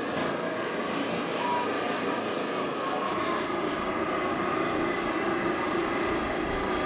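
Steady roaring noise of a busy street-food stall, with faint voices in the background.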